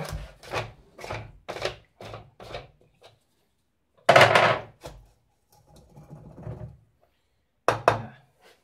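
A plastic rotary tumbler drum being handled as its screw lid is worked open: a series of short hollow plastic knocks and clunks, one louder, longer clatter about four seconds in, and a sharp knock near the end.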